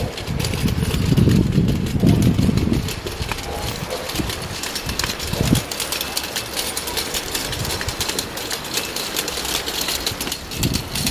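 Small plastic wheels of a toddler's toy stroller rattling steadily as it is pushed over brick paving, with a heavier low rumble during the first few seconds.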